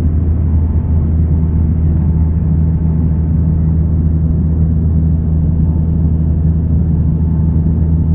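Cabin noise inside a Bombardier Dash 8 Q300 turboprop airliner on approach: the steady, deep drone of its turboprop engines and propellers, with no change in pitch.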